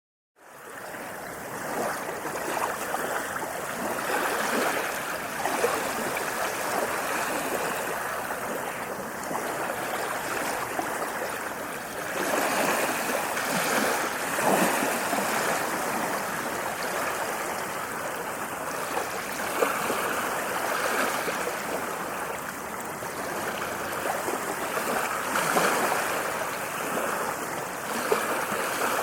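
Ocean waves washing onto the shore: a continuous rush of surf that swells and eases every few seconds.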